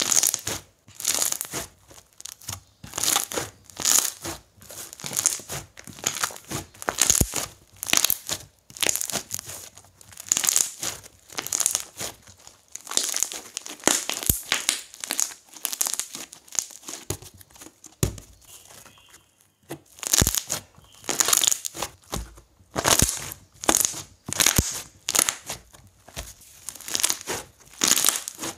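Textured slime with an ox-head glue and wood glue base being pressed, folded and stretched by hand, giving a long series of short crackly, squishing bursts with brief pauses between them.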